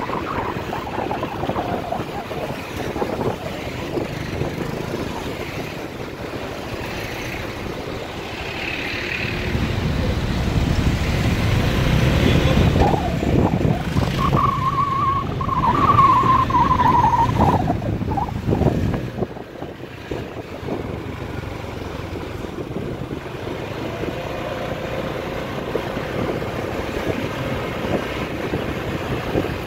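Traffic noise heard from the back of a moving motorbike taxi: a continuous motorbike engine and road noise, with cars and vans close by. Midway through, a low rumble swells for about ten seconds, and a wavering high whine sounds for a few seconds within it before the noise settles again.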